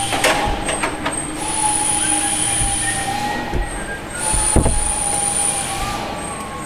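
Workshop machinery whining steadily at a high pitch, cutting out and back in several times with small shifts in pitch, with a few sharp metallic knocks about a second in and again near the middle.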